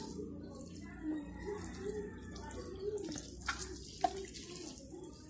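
Water showering from the sprinkler rose of a plastic watering can onto loose potting soil, a steady splashing hiss. A couple of light clicks about three and a half and four seconds in.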